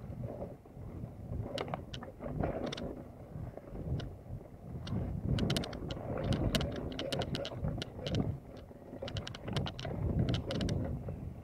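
Mountain bike rolling fast down a rough dirt singletrack: a steady rumble of tyres and wind on the microphone, with clusters of sharp clicks and rattles from the bike jolting over bumps, thickest about halfway through and again near the end.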